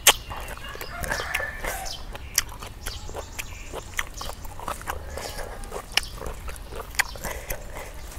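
Close-up eating sounds: chewing and mouth smacking on grilled chicken and fresh greens, with irregular sharp wet clicks, the loudest right at the start.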